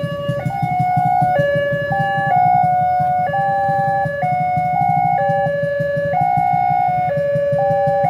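Two electronic railway level-crossing sirens sounding together, the barrier-gate siren and the train-direction indicator lamp's siren, each stepping between pitches about once a second. A low engine rumble from idling motorcycles sits underneath.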